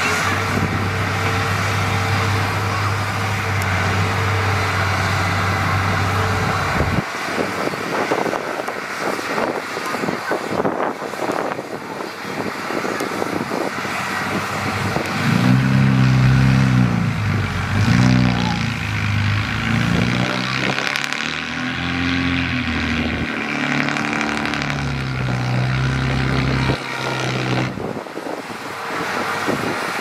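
Heavy diesel engines of earthmoving machines running. There is a steady drone for the first seven seconds or so. After that the engine pitch keeps rising and falling, most strongly from about the middle to near the end.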